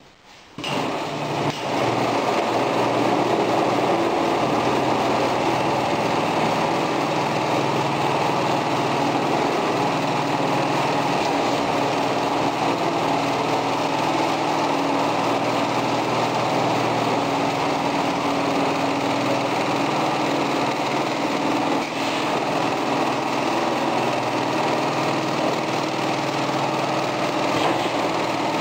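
Rail-mounted tarpaulin sewing machine starting up about half a second in, then running steadily as its sewing head travels along the track stitching a long seam, with a steady machine hum.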